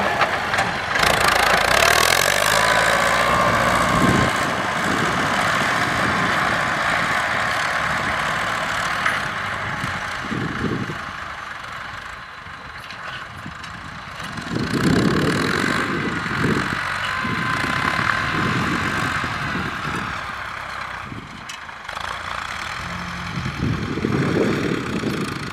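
Diesel engines of Ford farm tractors running as they push and level soil with front blades. The engine sound swells louder about halfway through and again near the end.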